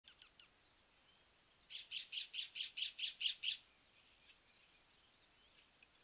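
A bird calling outdoors: a few faint short notes, then about two seconds in a fast series of about nine repeated notes that grow louder before stopping.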